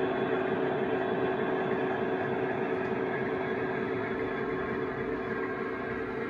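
DCC sound decoder in an OO gauge Freightliner Class 66 model locomotive playing its diesel engine sound through the model's small onboard speaker, a steady running hum that eases off slightly near the end as the loco moves away.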